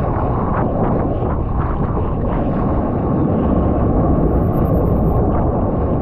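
Steady, loud, muffled rush of surf and wind on a GoPro in its waterproof housing while surfing, with low rumble from moving water.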